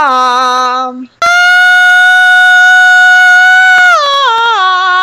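A male singer belting a sustained high 'la' in full chest voice. The tail of a lower note ends about a second in; then a new high note is held steady for about two and a half seconds and steps down in several quick stages, coming back down off the note.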